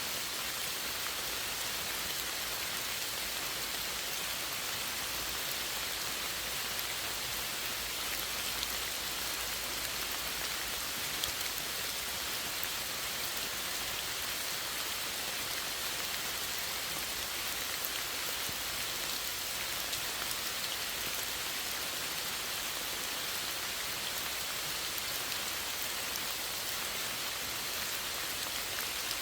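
Steady rain falling, a dense even hiss with scattered drop patter.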